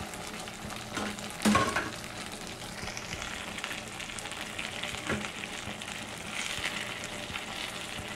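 Cream sauce sizzling and bubbling in a frying pan with fried tofu cubes just added. A sharp knock comes about one and a half seconds in, and a fainter one about five seconds in.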